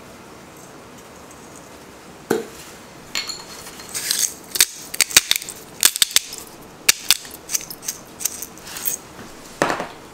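Rock salt ground from a clear hand grinder into a stainless steel mixing bowl: a run of sharp, irregular clicks that starts about two seconds in and stops just before the end.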